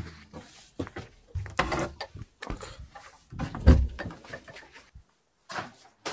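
Irregular footsteps, knocks and rustling of a person walking through doorways with a hand-held camera, the loudest thump a little under four seconds in.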